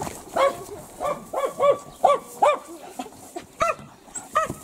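Large dog barking rapidly and repeatedly, about eight sharp barks with a short pause near three seconds in, as it attacks a man in a padded bite suit during protection training.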